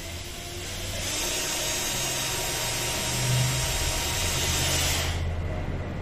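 Cordless drill-driver running under load into a melamine furniture panel, a steady whirr that builds about a second in and stops about five seconds in.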